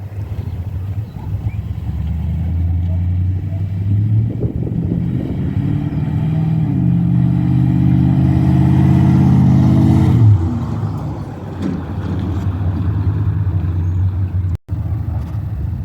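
2007 GMC Sierra Classic pickup's exhaust (long-tube headers, 2.5-inch true duals with X-pipe, three-chamber muffler) under acceleration. The engine note climbs in steps for several seconds, drops as the throttle is lifted about ten seconds in, then runs steady. The tone is quiet, with the clappy crackle of the old muffler cured.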